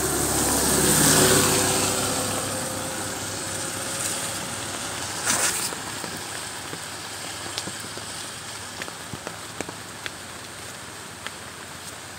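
A motor vehicle passes on a wet road: engine hum and tyre hiss swell about a second in, with a slowly falling tone, and fade over the next few seconds. A brief louder rush comes about five seconds in. After that there is a steady hiss with scattered light ticks.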